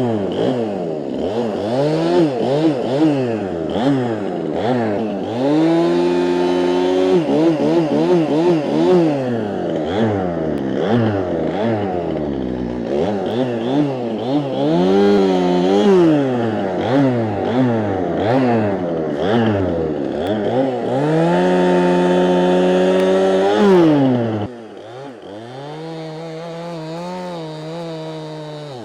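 Gas chainsaw cutting, its engine revving up and down over and over. Near the end it drops suddenly to a lower, quieter, steady idle.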